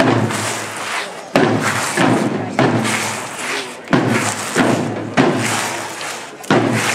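Slow, regular heavy beats, one about every 1.3 seconds, each dying away before the next: the marching rhythm that a Roman cohort keeps as it advances in procession.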